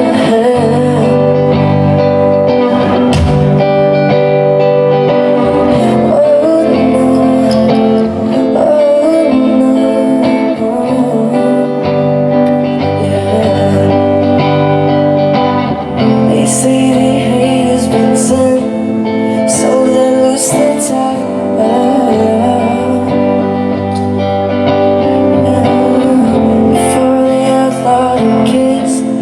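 Live band playing a pop song through a stage sound system: electric guitar and bass with a voice singing over them, and bright cymbal-like strokes joining in about halfway through.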